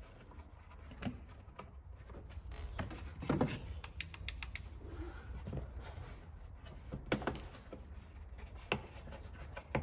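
Scattered clicks and knocks of hard plastic as push-fit fixings are pressed into the holes of a car's engine-bay covers, with a cluster of quick light clicks about four seconds in.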